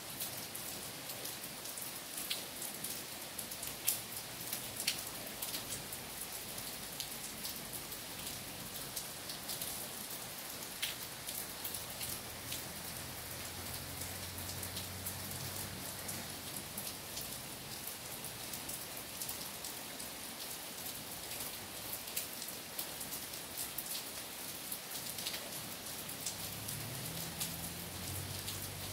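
Steady rain falling on trees and puddled ground: a continuous hiss dotted with the sharp ticks of single drops hitting close by. A faint low hum joins in about halfway through and again near the end.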